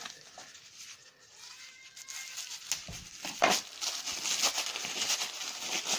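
Tissue paper wrapping rustling and crinkling as a wrapped item is unpicked by hand. It is quiet at first and grows into steady crinkling with small clicks from about two seconds in.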